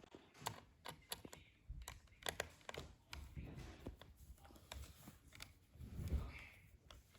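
Small sharp clicks and taps of a tiny screw and screwdriver as the M.2 SSD's retaining screw is set and driven in, with a soft handling bump near the end.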